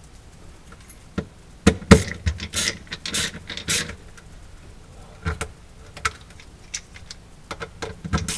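Hands handling electrical wires and a small hand tool: clicks, rattles and rustles, with a close cluster of sharp clicks between about one and a half and four seconds in and a few scattered ones later.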